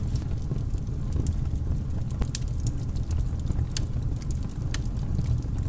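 Deep, steady rumble with scattered light crackles and sharp clicks, an intro sound effect.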